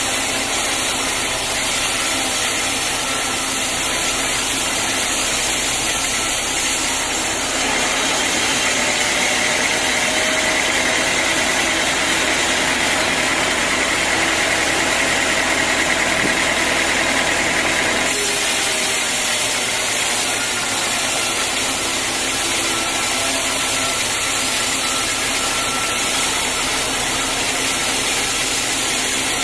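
Sawmill machinery running with a steady mechanical drone. From about 7 to 18 seconds in, a higher whine rides over it.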